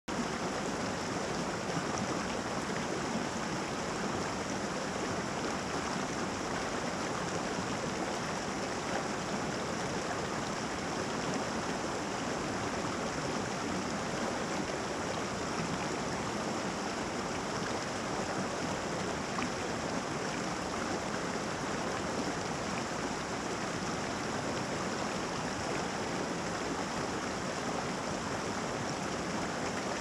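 Shallow mountain stream running over rocks in small cascades: a steady, even rush of water.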